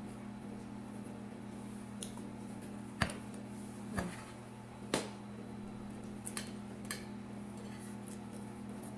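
French fries being picked off a plate and eaten by hand: a few sharp clicks and taps, the loudest about three, four and five seconds in, over a steady low hum.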